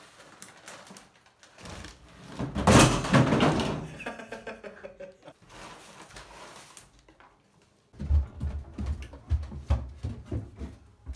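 Popped popcorn poured from brown paper bags into a plastic storage tub, with the paper bags rustling; the loudest burst comes about three seconds in. In the last few seconds there is a run of low thumps and knocks.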